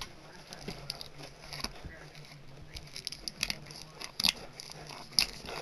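Small cardboard box being handled and picked open by hand: irregular scratching, tapping and crinkling, with a few sharper clicks past the middle.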